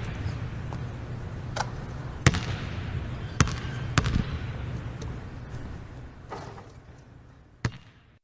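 Basketball bouncing on a hard court: a few single, irregularly spaced bounces over a steady low background that fades out, with one last bounce near the end.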